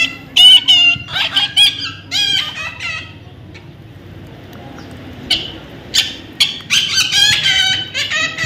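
Baby parrots calling: a run of short, harsh, wavering calls, a pause of about two seconds in the middle, then a fresh run of calls.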